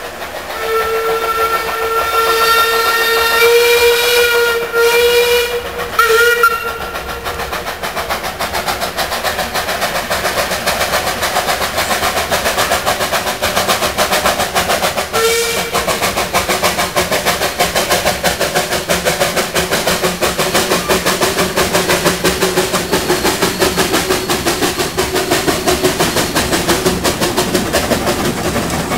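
Steam whistle of a 0-4-0 vertical-boiler tank locomotive: one long blast of about six seconds that wavers near its end, then a short toot about fifteen seconds in. Around the whistles, the locomotive working along the track gives a steady, rapid rhythmic beat.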